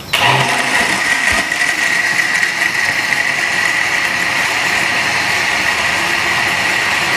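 Countertop electric blender switched on and running steadily, a high motor whine over the churning of mango lassi (mango, yogurt, ice and water) in its glass jar.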